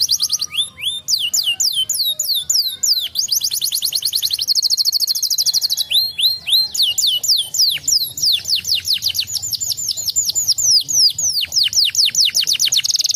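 Domestic canary singing a long, unbroken song: runs of quick downward-slurred whistled notes alternating with very fast buzzing trills, with no real pause.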